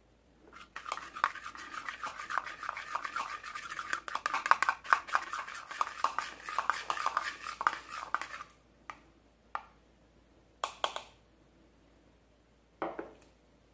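Metal spoon stirring liquid soap in a small bowl, rapidly scraping and clicking against the bowl for about eight seconds. After that come a few separate knocks.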